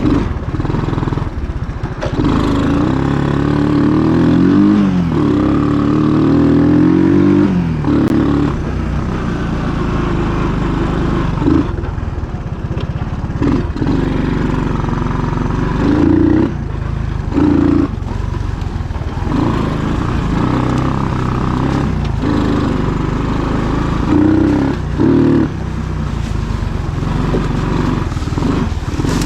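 1980 Honda ATC185's small single-cylinder four-stroke engine running under load while being ridden, its pitch rising and falling repeatedly as the throttle is opened and eased off.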